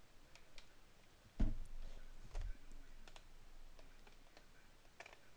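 A soft thump about a second and a half in, then a few faint, scattered clicks.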